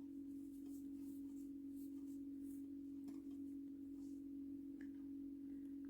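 A steady humming tone, with faint soft rustles of yarn being worked with a crochet hook.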